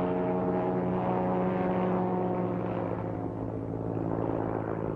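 Propeller-driven piston aircraft engine droning steadily in flight, its upper tones fading somewhat in the last couple of seconds.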